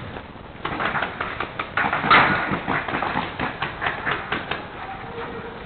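Paintball markers firing in rapid, irregular bursts of sharp cracks, starting about half a second in and thinning out near the end.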